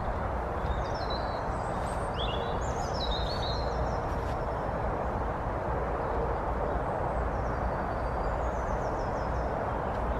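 Small songbirds chirping in quick falling phrases, a few in the first seconds and fainter again later, over a steady rushing background noise.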